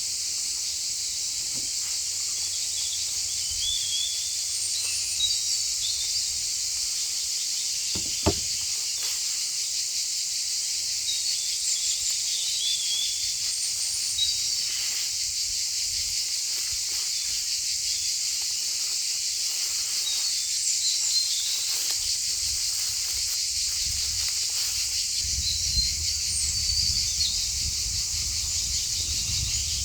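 Steady high-pitched insect chorus, with short bird chirps over it and a single sharp click about eight seconds in; a low rumble joins in over the last third.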